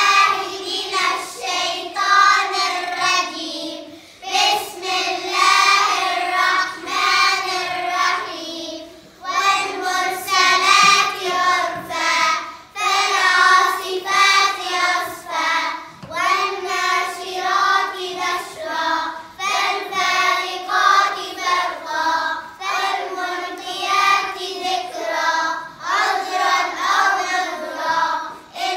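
A group of young girls singing together in unison, in phrases of about three to four seconds with short breaks between them.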